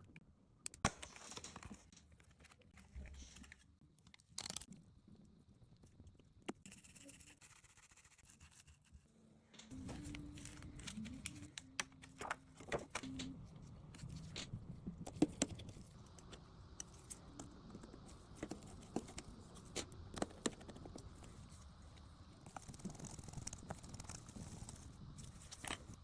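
Faint clicks, taps and scraping of small tools and parts being handled, with a low steady hum in the background from about ten seconds in.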